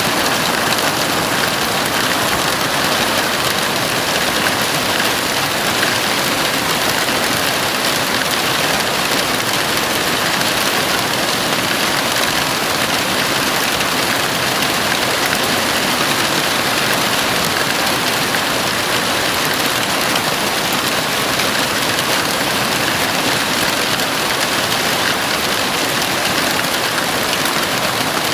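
Heavy rain falling steadily on a house roof, an even, unbroken hiss with no single drops standing out.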